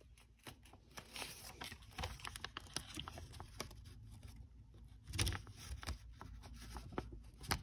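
Faint rustling and crinkling of an 80 gsm sheet of paper being folded and creased by hand, with many scattered small ticks and a soft bump about five seconds in.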